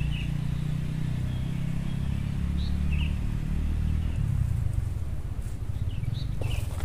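An engine running steadily off-screen, a low hum that drops slightly in pitch about halfway through, with a few faint high chirps over it.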